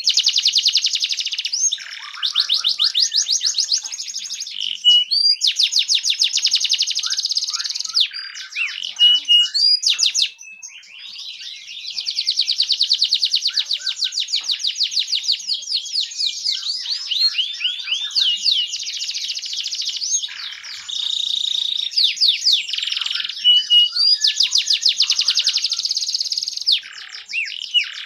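Domestic canary singing: long, fast rolling trills of rapidly repeated notes, one run after another, linked by short whistled notes and glides, with a brief drop-off about ten seconds in.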